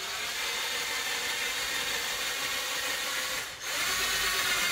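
Power drill running steadily as it bores rivet holes through the car's plastic front bumper. It stops briefly about three and a half seconds in, then runs again.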